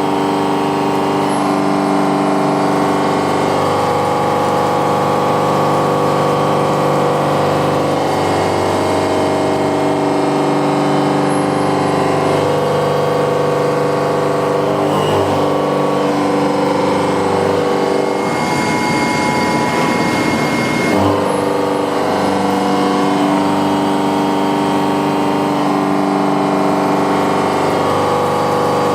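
Milling machine cutting metal with an indexable-insert milling cutter: a loud, steady machining tone whose pitch pattern shifts a few times, with a rougher, noisier stretch about two-thirds of the way through.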